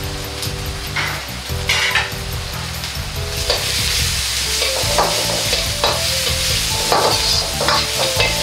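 Julienned vegetables sizzling as they are stir-fried in a hot wok. A metal ladle scrapes and knocks against the wok about once a second. The sizzle grows louder about three seconds in.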